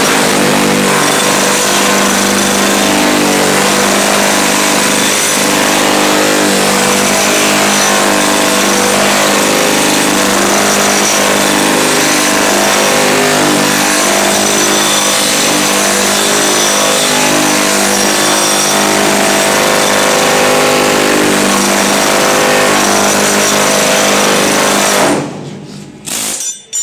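Pneumatic air hammer running continuously against the steel rear quarter panel of a 1968 Mustang fastback, with a slapping spoon held on the outside, giving a loud, steady buzzing rattle as it smooths out dents and dimples. It stops suddenly about a second before the end.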